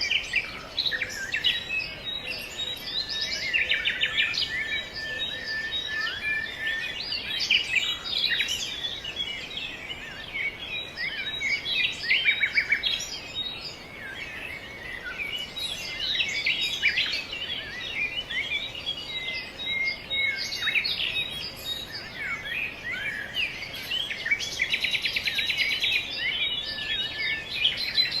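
Songbirds chirping and calling, many short overlapping chirps and quick pitch glides, with a fast trill near the end.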